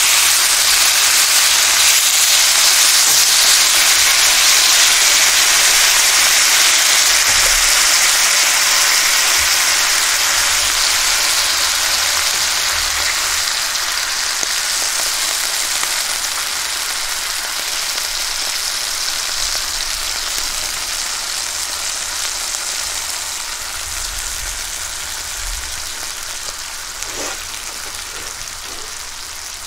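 Thinly sliced wagyu beef sizzling in a pan of beef fat, soy sauce and brown sugar, a dense, steady frying hiss that slowly dies down as the liquid cooks.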